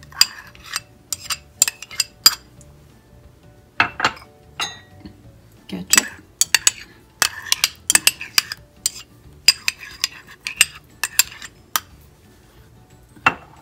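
Metal spoon clinking against a ceramic bowl: a string of irregular sharp clinks with a few brief scrapes in between.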